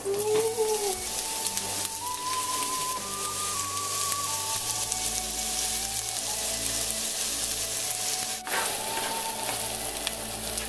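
Diced onions sizzling as they fry in a hot nonstick pan, stirred with metal tongs. The frying hiss breaks off briefly about eight and a half seconds in. Faint background music plays under it.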